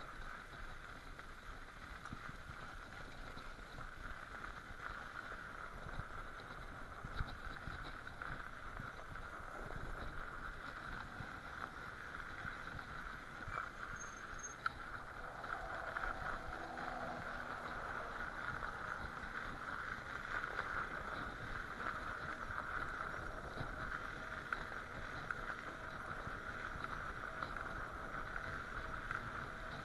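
Ride noise of a Sondors fat-tyre electric bicycle rolling over packed snow and ice: a steady hum and tyre rumble with scattered small clicks and rattles from the bike.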